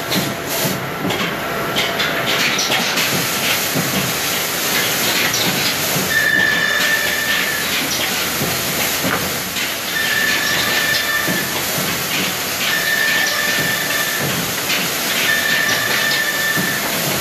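Woodworking factory machinery running steadily with a loud hiss, and boards knocking as they are handled. From about six seconds in, a short high tone repeats every few seconds.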